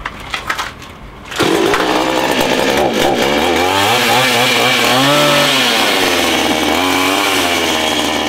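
Petrol chainsaw jumping to loud running at high throttle about a second and a half in. Its engine pitch rises and falls midway, as the throttle is worked or the chain meets the work.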